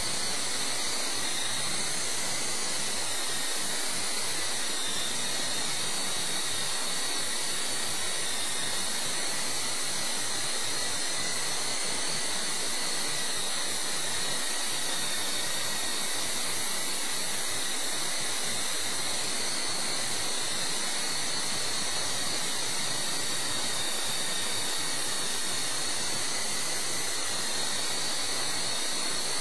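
Esky CO-Comanche coaxial RC helicopter in flight: its small electric motors give a steady high whine over the hiss of its rotors, the pitch wavering slightly with throttle.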